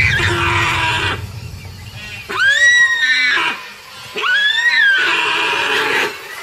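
Deer giving shrill distress screams while held by a tiger, two full calls each rising then falling in pitch. After each, water splashes as the deer thrashes in the shallows.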